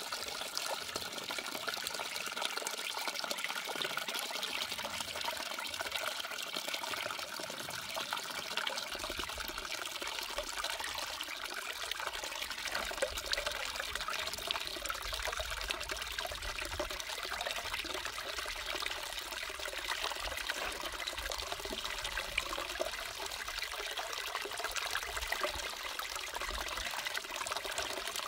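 Water trickling and pouring steadily down a small gold-prospecting sluice box lined with a green mat, while wet paydirt is fed in by hand.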